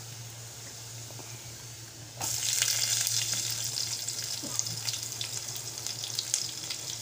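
Garlic frying faintly in hot oil in a small aluminium saucepan, over a steady low hum. About two seconds in, sliced onions go into the oil and it breaks into a much louder, crackling sizzle that carries on: the onions being sautéed (ginisa) with the garlic.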